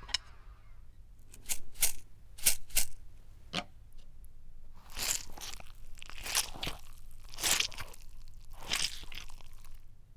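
Foley crunching: a few short, sharp cracks in the first four seconds, then longer crunching scrapes from about five seconds in.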